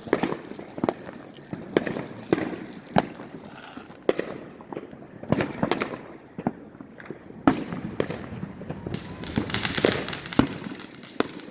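Consumer fireworks going off around a neighbourhood: irregular sharp bangs and pops, several a second at times. There is a dense patch of crackling about nine seconds in.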